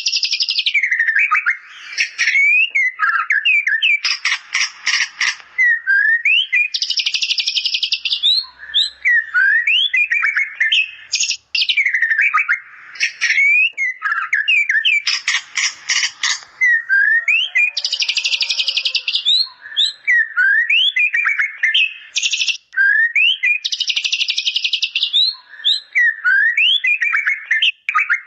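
White-rumped shama (murai batu) singing nonstop, its song filled with imitated bar-winged prinia (ciblek) phrases. Quick sweeping whistled chirps run throughout, broken by dense high chattering passages and, twice, a fast rattling trill.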